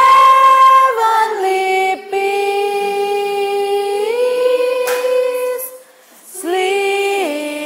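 A group of young teenagers singing a Christmas carol together without accompaniment, in long held notes that step from one pitch to the next. The singing breaks off briefly about six seconds in, then starts again.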